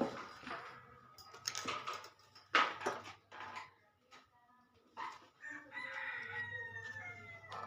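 Several sharp knocks and clatters, then a drawn-out animal call of about two seconds near the end, its pitch sliding down as it finishes.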